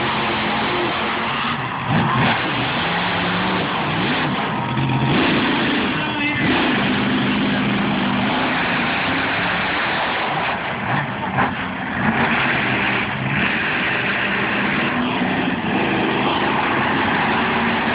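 Monster truck engines revving hard during a freestyle run. The engine note climbs and drops again and again over a loud, rough wash of noise.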